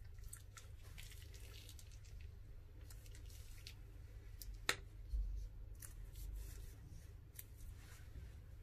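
Plastic piping bag being squeezed as clear glue is piped into a glass dish: faint crinkling of the bag and soft squishing of the glue, with scattered small ticks and one sharp click about halfway through.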